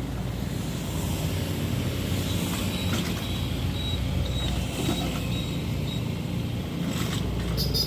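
Komatsu MR30 mini excavator's diesel engine running steadily while it works, with a faint high whine through the middle and a few knocks. Near the end comes a fast run of high chirps.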